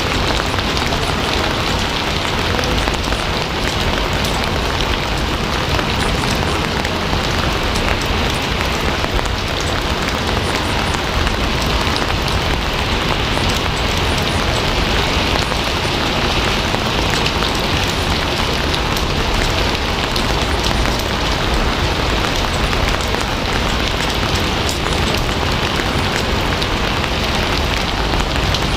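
Steady rain falling: a dense, even hiss with no break or change.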